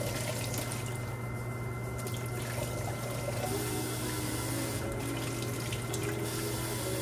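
Kitchen tap running water into a bowl of seeraga samba rice being rinsed by hand, the flow hissing in spells that start and stop several times. A steady low hum lies underneath.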